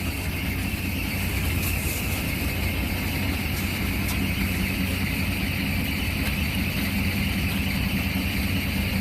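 Truck engine idling steadily: a continuous low hum with a steady higher-pitched hiss over it.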